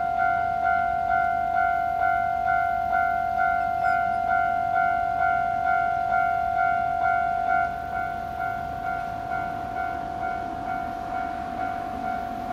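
Japanese railway level-crossing electronic warning bell ringing, one pitched tone struck about twice a second. It drops in loudness about eight seconds in, and a low rumble builds near the end.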